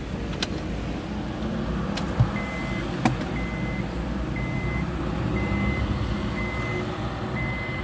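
An electronic beep at one steady pitch repeats six times, about once a second, each about half a second long. It sits over a steady low rumble, with a few sharp clicks before the beeping starts.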